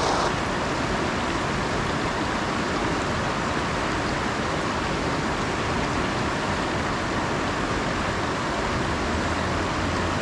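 Steady rush of water running over a shallow, rocky river riffle, slightly louder for a moment at the very start.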